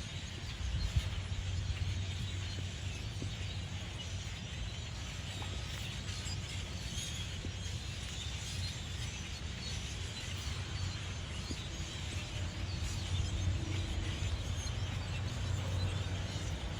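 A large flock of birds chattering and chirping, over a steady low hum.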